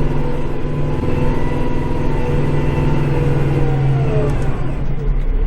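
Kubota tractor's diesel engine running steadily, heard from inside the cab while it pushes deep snow with a front blade, with a whine that falls in pitch about four seconds in.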